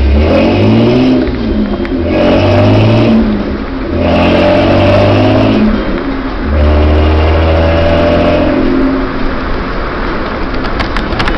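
Ford Ranger's 2.9-litre V6 running through a Flowmaster 40 series muffler, revving up in about four pulls, each rising in pitch and then dropping back briefly, as when accelerating through the gears.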